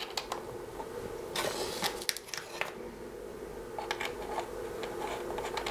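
Hands handling wires and connectors on a bench: scattered small clicks, with a longer rustle from about one and a half to two and a half seconds in, over a steady faint hum.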